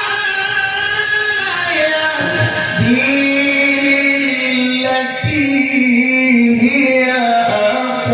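A male Quran reciter's voice drawing out a long, ornamented melodic line in tilawah style. He holds a note, slides down in pitch about two seconds in, sustains a lower note with small turns, and begins rising again near the end.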